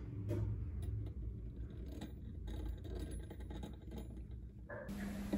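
Faint handling clicks from a brass depthing tool as a clock wheel and pinion mounted in it are worked by hand, over a low rumble. Near the end a steady low hum sets in.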